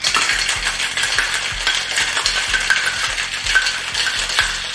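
Ice cubes rattling hard inside a metal cocktail shaker tin as a gin cocktail is shaken by hand, starting abruptly, with a regular beat of about two to three strokes a second.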